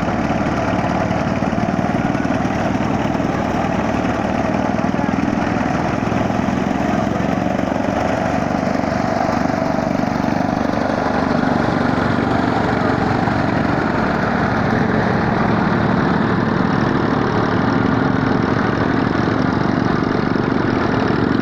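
Chaff cutter running steadily, a continuous mechanical drone with a fast, even chatter.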